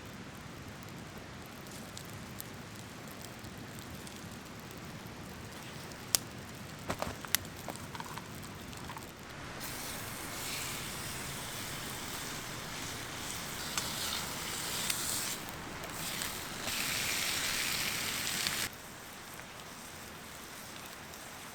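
Steaks sizzling over a campfire, with a louder hissing sizzle from about ten seconds in that cuts off sharply near the end. A few sharp pops come from the fire before it, over a steady rushing background.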